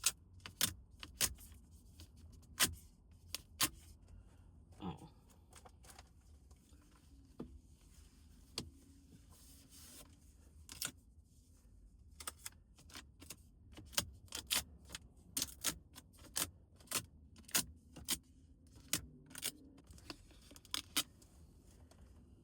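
Irregular sharp clicks and taps of hands and fingernails on glass and plastic while a tempered-glass screen protector is put on a screen.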